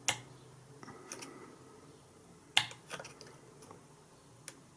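Small sharp plastic clicks and taps, about five of them, spread unevenly, as the plastic parts of a PC power-supply cooling fan are handled while its retaining washer is worked off the motor shaft.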